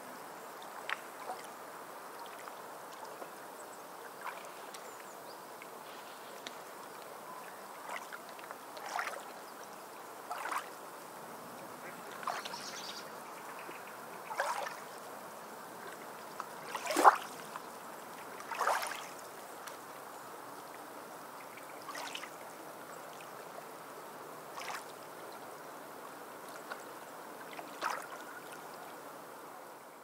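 Small waves lapping and splashing against shoreline rocks over a steady wash of sea water, with short splashes every second or two, the loudest about seventeen seconds in.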